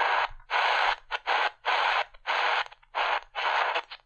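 Medium-wave static hiss from a Tecsun PL-380 portable radio's speaker, chopped into about seven short bursts with silent gaps, roughly two a second, as the tuning knob is turned step by step through empty channels. The gaps are the radio's DSP chip muting on each tuning step.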